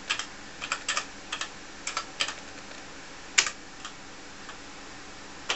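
Keys being typed on a TRS-80 Model 1 keyboard: about a dozen separate keystroke clicks at an uneven pace, with one louder keystroke about three and a half seconds in.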